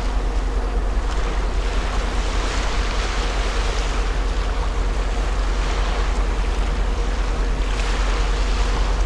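A large cruise ship's steady low rumble as it moves close past in a channel, under a rushing wash of water and wind that swells and fades every few seconds, with wind buffeting the microphone.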